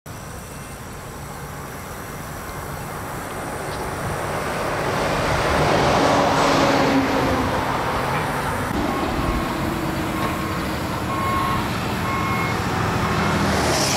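Highway traffic: a road vehicle passes, its noise swelling to a peak about six seconds in and then easing off. In the second half, a backup alarm on heavy equipment beeps on and off.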